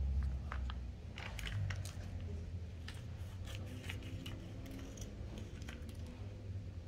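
Plastic water pouch being handled, crinkling with scattered light clicks that thin out after about three seconds.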